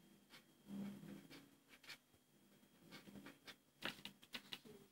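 Felt-tip marker scratching on paper in short, faint strokes as words are written, over a low steady hum.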